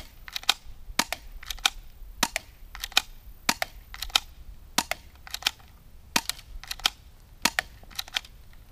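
Low-powered airsoft pistol firing BBs in quick succession, about a dozen shots, each a sharp crack followed a fraction of a second later by a second click, roughly one and a half shots a second.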